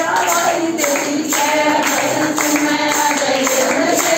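Group of devotees singing a bhajan together in kirtan style, over a rhythmic jingling percussion beat with some hand clapping.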